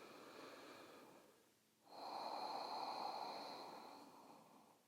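A person breathing slowly and softly: a faint breath at the start, then a longer, fuller breath of about two seconds beginning about two seconds in.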